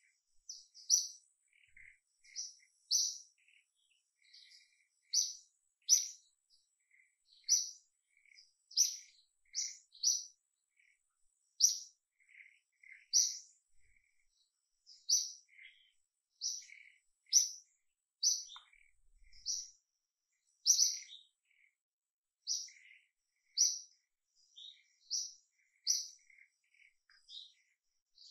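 A bird chirping over and over: short, high chirps at roughly one a second, unevenly spaced, with fainter, lower chirps in between.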